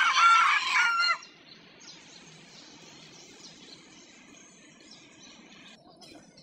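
A rooster gives one loud, wavering call, a crow, that ends about a second in. Faint bird chirping follows in the background.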